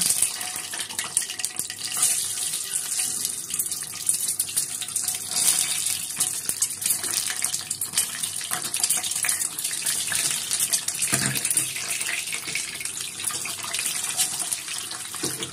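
Hot refined oil sizzling and crackling in a non-stick kadhai as whole peeled boiled eggs are dropped in one by one to fry.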